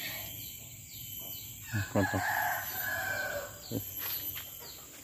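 A rooster crowing once, one long call starting a little under two seconds in and lasting about a second and a half. A few low thumps come around it, and a faint high chirp repeats steadily in the background.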